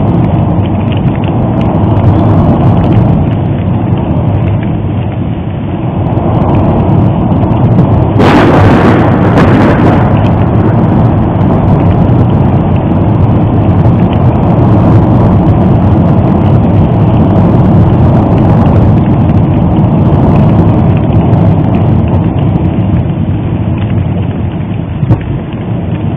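Popocatépetl's ash eruption rumbling steadily and deeply, with a brief harsher burst about eight seconds in.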